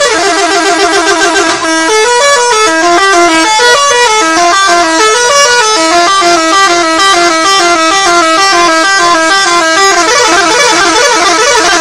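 Indonesian 'telolet' bus horn, a multi-tone musical horn, playing a quick tune of stepped notes several times a second. The tune changes about two seconds in and again near the end.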